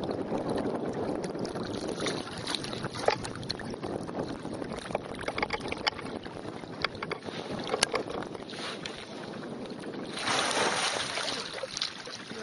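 Lake water splashing and sloshing around a swimming elephant, with wind buffeting the microphone and scattered small knocks. A louder rush of noise comes about ten seconds in.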